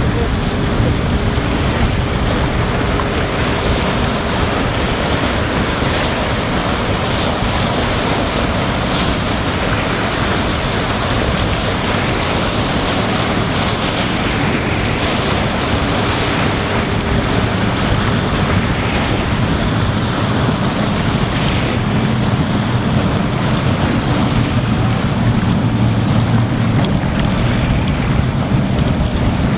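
Steady wind rushing over the microphone, with waves on open water.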